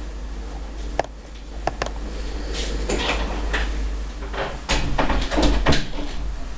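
A run of knocks and clattering bangs that grows busier and louder, with the loudest bangs near the end.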